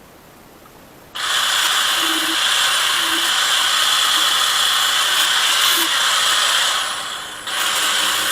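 A power tool working steadily against a workpiece. It starts suddenly about a second in and dips briefly near the end before picking up again.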